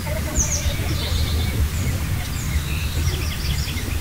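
Steady low rumble from riding in a moving funicular car, with birds chirping many times in the trees alongside.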